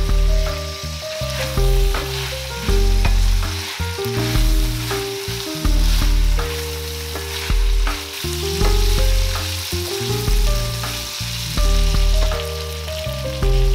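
Prawns and chicken sizzling in a stainless steel frying pan, stirred with a wooden spatula that scrapes and clicks against the pan. Background music with a steady beat plays over it and is louder.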